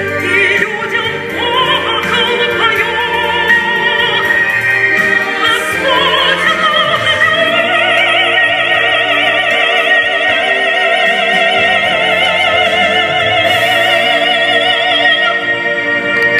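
A woman singing in an operatic style with wide vibrato over instrumental accompaniment, climbing to a long held high note from about seven seconds in to the end of the song.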